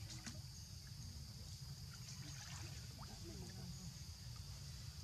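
Faint outdoor ambience: a steady high insect hum over a low rumble, with a few scattered faint clicks and small chirps.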